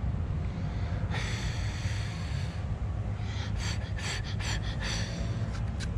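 A child blowing on a dandelion seed head: one longer breath out about a second in, then a run of short sharp puffs, over a low steady rumble.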